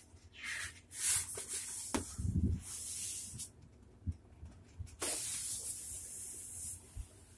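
Large sheets of poster paper being handled and turned over: two spells of papery rustling, the first from just after the start to about three and a half seconds in with a dull thump partway through, the second from about five to nearly seven seconds.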